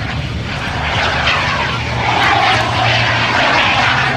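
Small turbojet of a jet-powered sailplane (PBS TJ100) heard as a rushing jet noise that swells as the aircraft passes, loudest in the middle, then eases, over a steady low hum.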